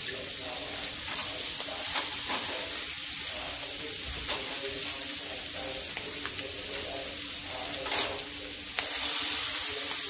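Salmon fillets searing skin-side down in hot oil and butter in a frying pan: a steady sizzle with scattered pops, a sharper crackle about eight seconds in, then slightly louder.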